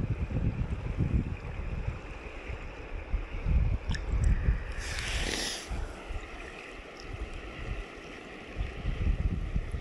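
Gusty wind buffeting the microphone over the steady rush of stream water in the shallows, with a short splash about five seconds in as a fish held in the current is let go.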